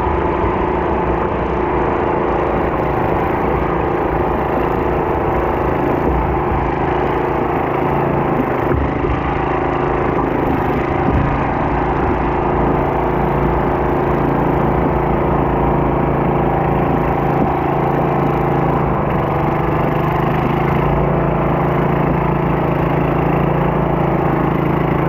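Stock garden tractor engine running steadily under load as it pulls a weighted pulling sled.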